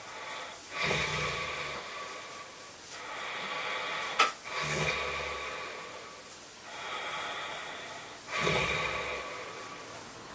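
A sleeping man snoring heavily: three loud snores about four seconds apart, each lasting about a second, with noisy breathing between them and a sharp click just before the second snore. The sleeper has been told he has sleep apnea.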